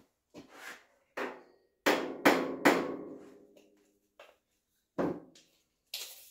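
Sharp metal knocks and clanks on a homemade sheet metal brake and the sheet clamped in it. Three loud strikes come close together about two seconds in and ring on afterwards.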